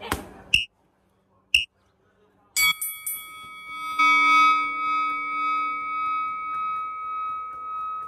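A few sharp smacks of strikes landing on Thai pads in the first second and a half, then a bell-like metallic tone struck twice, about a second and a half apart, ringing on with a slow waver.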